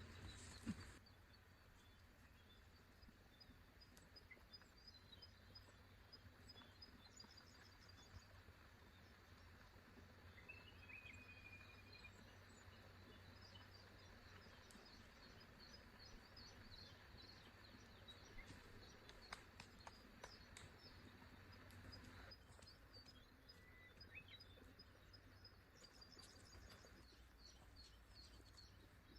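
Quiet forest ambience: faint small birds chirping and calling now and then over a low, even background hush. There is a brief knock or two right at the start.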